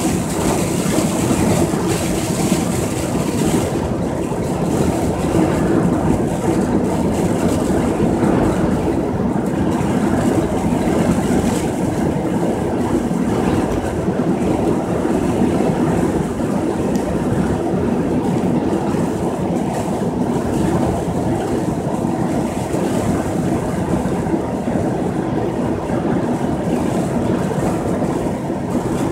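Steady road noise of a vehicle cruising at highway speed, heard from inside the cabin: a continuous engine and tyre drone.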